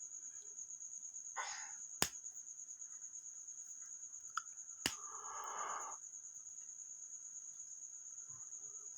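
Two sharp clicks and brief rustling from handling small phone parts, over a steady, high-pitched, pulsing trill.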